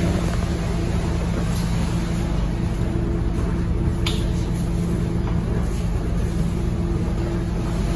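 Scania K230UB single-deck bus's five-cylinder diesel engine running, heard from inside the passenger cabin: a steady low hum with a held drone, and a single sharp click about four seconds in.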